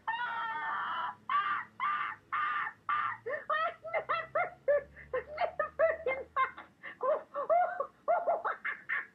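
A cartoon owl laughing hard: a long string of hooting, cackling laughs. Drawn-out wheezy peals come for the first three seconds or so, then quick choppy hoots about four a second.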